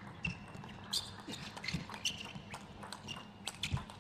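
Table tennis rally: a quick, irregular series of sharp clicks as the celluloid-type plastic ball strikes the bats and the table, with short shoe squeaks as the players shift their feet.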